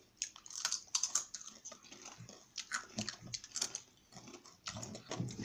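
Crunchy Doritos tortilla chips being chewed, with irregular sharp crunches.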